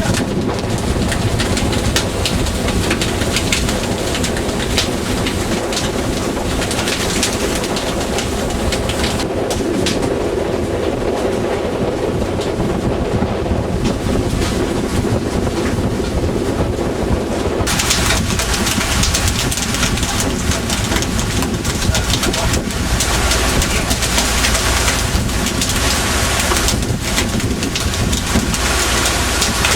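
Fishing boat's engine running steadily, with a low hum and constant clatter and hiss. The sound changes suddenly a little past halfway, turning brighter and hissier.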